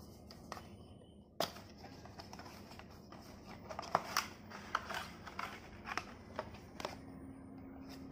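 Cardboard packaging being handled and opened: scattered soft clicks, taps and rustles of the box and inner tray, with a sharper tap about a second and a half in and a run of small clicks in the middle.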